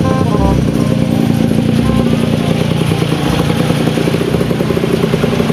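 Small go-kart engine running steadily with a fast, even putter as the kart is driven along.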